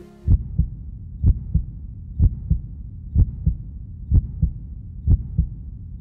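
Heartbeat sound effect: a slow, steady lub-dub of paired low thumps, about one pair a second.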